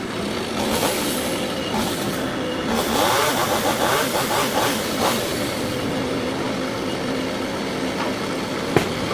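An engine running continuously, its pitch wavering up and down, with one sharp knock near the end.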